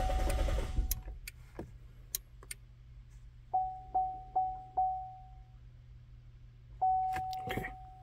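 Electronic warning chime: a single fading tone sounds four times in quick succession about three and a half seconds in, then again, held longer, near the end. A few faint clicks come before it over a low steady hum.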